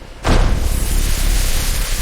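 A loud, steady hiss starts suddenly about a quarter of a second in, with a low rumble beneath it.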